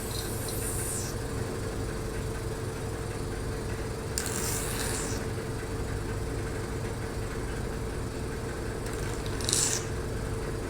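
Hydradermabrasion machine's vacuum pump running with a steady hum, with three short hisses as air and water are drawn through the suction handle's tip.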